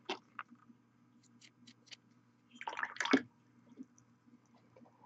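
Small plastic miniature parts handled by hand on a cardboard work surface. There are a couple of light clicks at the start and a few faint ticks, then a short burst of knocking and rustling about three seconds in, which is the loudest moment, and one more small knock soon after.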